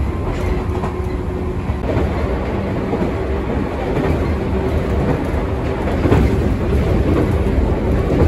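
Electric train running at speed, heard from inside the carriage: a steady rumble of wheels on rail with scattered clacks over the rail joints. A steady hum stops about two seconds in.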